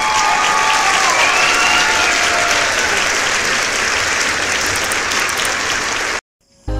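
Crowd applause with a few falling cheer-like tones over the first three seconds, cutting off suddenly about six seconds in.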